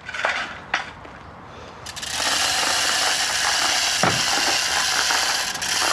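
Manual chain hoist being hauled by its hand chain, the chain rattling and the pawl ratcheting steadily as it lifts a heavy gearbox; the clatter starts about two seconds in.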